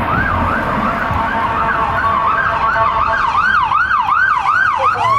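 Police SUV's electronic siren in yelp mode, its pitch sweeping rapidly up and down about three times a second, over the low rumble of traffic. Right at the end the pattern breaks off into a slower rising tone.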